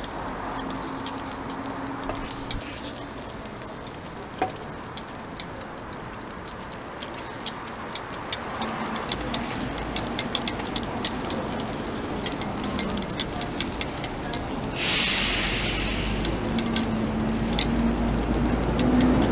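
Metal takoyaki picks clicking and scraping against a cast-iron takoyaki pan as the balls are turned, over a steady sizzle. In the second half a low vehicle engine rumble joins in, with a sudden short burst of hiss about three quarters of the way through.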